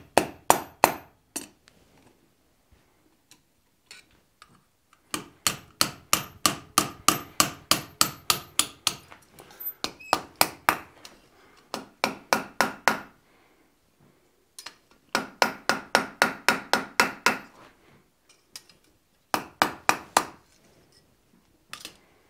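Hand hammer striking a steel drift and hot iron on the anvil, driving the drift through a quarter-inch eye. The blows come in several runs, about four a second, with short pauses between runs.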